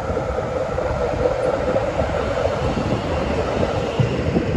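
Melbourne tram passing close by on its tracks: a steady rumble of wheels on rail with a humming tone.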